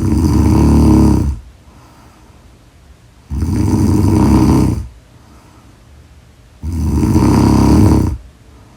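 A person snoring heavily. Three loud snores come about every three seconds, each lasting about a second and a half.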